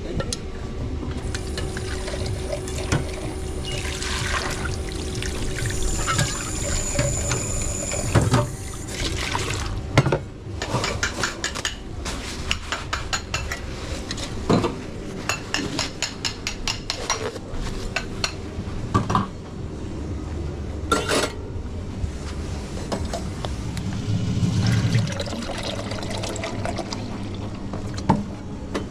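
Liquid pouring and water running at a café counter, with a long run of quick clicks and knocks from cups and equipment through the middle.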